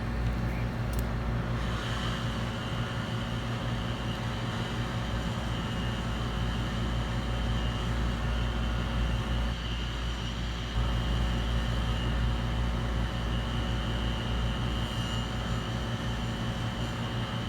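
Steady hum of electrical bench equipment, with a thin high whine joining about two seconds in and a brief click near the start.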